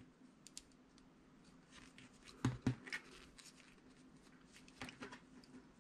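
Metal knitting needles clicking faintly as stitches are worked, with a few scattered clicks and two sharper ones close together about halfway through.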